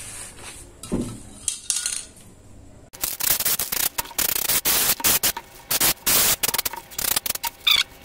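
Aerosol spray-paint can hissing in a run of short and longer bursts, starting about three seconds in, as grey paint goes onto the cardboard box. Before it, faint handling sounds of the box on newspaper.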